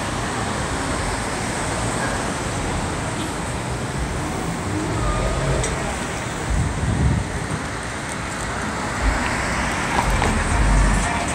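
Street traffic on a city avenue: a steady wash of cars passing, with heavier low rumbles about halfway through and again near the end.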